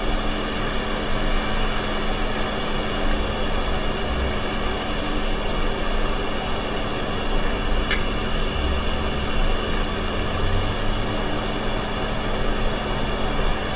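Hot air rework station blowing steadily, a hiss with a faint steady whine, while it heats the solder of a replacement HDMI port. One small click about eight seconds in.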